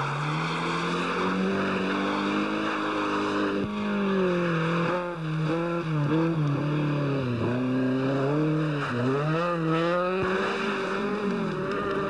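Rally car engine running at high revs, its pitch repeatedly dropping and climbing again as the driver changes gear and lifts off.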